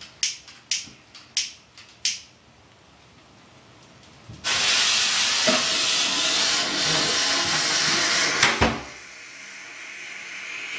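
A series of about six sharp clicks, then, about four seconds in, a firework rocket's fuse catches and hisses loudly, spraying sparks. A knock comes near the end of the loud hiss, and a quieter hiss builds as the fuse burns down toward ignition.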